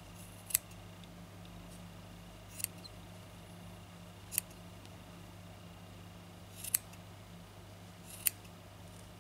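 Small metal embroidery scissors snipping through wound loops of wool yarn. There are five short, sharp snips, a second and a half to two seconds apart.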